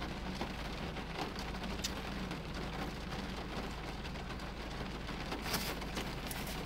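Steady rushing noise inside a car cabin, with a low hum underneath and scattered faint ticks.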